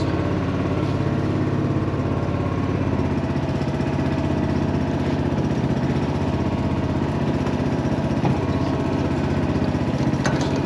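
A small open fishing boat's motor running steadily, its note shifting slightly about three seconds in.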